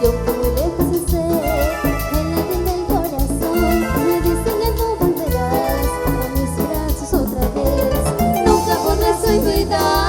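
Live band music in a Latin cumbia style: a gliding keyboard melody over a pounding bass line and fast, even percussion, with no words sung.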